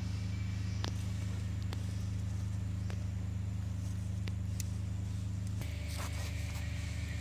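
A steady low hum that shifts in tone about five and a half seconds in, with a few faint scattered clicks and ticks over it.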